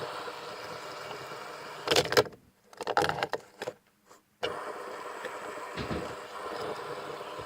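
Fidget spinners clattering together in the hands, a few sharp knocks about two seconds in, as they are stacked. A steady hum runs underneath.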